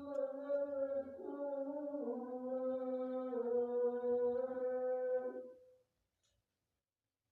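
Background music of slow, held, chant-like vocal notes that step in pitch every second or two. It fades out about five and a half seconds in and leaves dead silence for the last second and a half.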